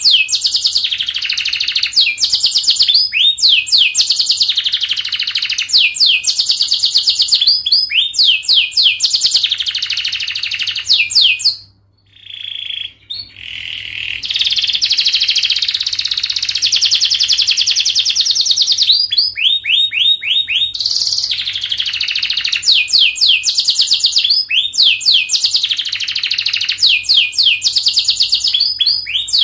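Domestic canary singing a long, fast song of tight trills and rapidly repeated falling notes, broken once by a short pause about twelve seconds in. It is the long, tight-rolled song used to lure and tutor young canaries.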